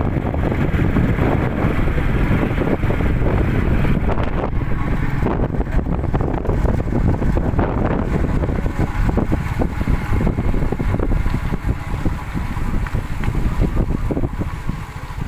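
Wind buffeting the microphone of a moving vehicle, a loud rumbling rush with the vehicle's running noise underneath.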